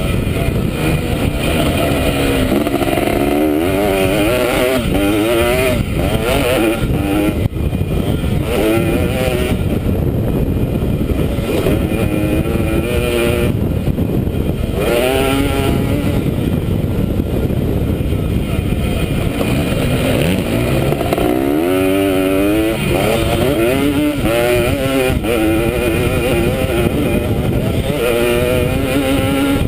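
Dirt bike engine revving hard as it is ridden flat out around a motocross track, its pitch climbing and dropping again and again through the gear changes. Heavy wind rush on the helmet-mounted microphone runs under it.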